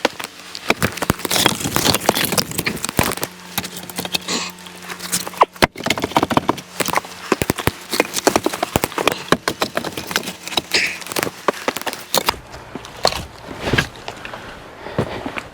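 Pieces of split firewood knocking and clattering against each other in quick irregular knocks, as in handling and stacking a woodpile.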